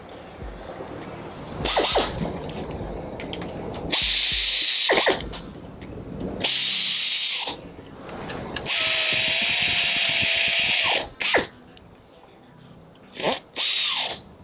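Power tool run in five short bursts, each a loud hissing whir, driving in the bolts that hold the new valve body onto a DSG gearbox. The longest burst lasts about two seconds.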